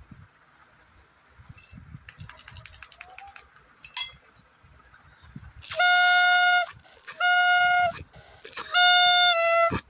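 Small plastic toy horn blown three times, each toot about a second long and steady in pitch, the last dropping slightly at its end. Before the toots come faint crinkling of foil wrappers and light plastic clicks.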